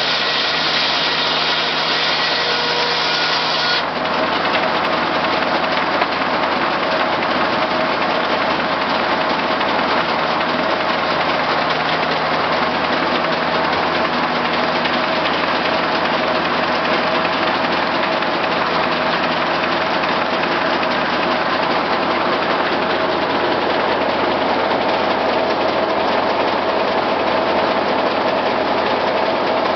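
Circular sawmill running, driven by a Case six-cylinder power unit; for about the first four seconds the blade is cutting through a log with a high, ringing whine that stops suddenly as the cut ends. After that the engine and the spinning blade run steadily.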